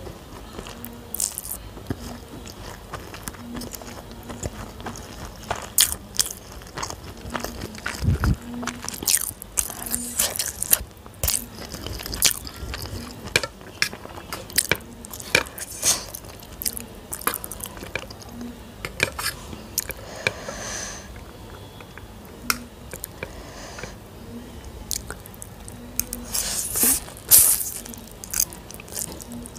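Close-up eating sounds: sharp crunches of crisp pani puri shells bitten and chewed, with mouth sounds of eating masala Maggi noodles. Near the end comes a louder stretch as a forkful of noodles goes into the mouth.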